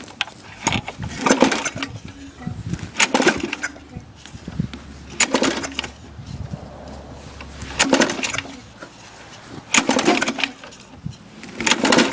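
Lawn mower's recoil starter cord pulled about six times, roughly every two seconds, each pull turning the engine over without it catching: a cold engine that won't start.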